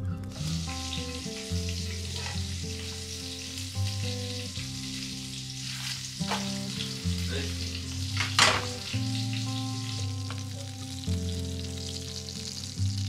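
Pancake batter sizzling in a hot frying pan, with a few sharp clinks of metal utensils against the pan and bowl, the loudest about eight seconds in.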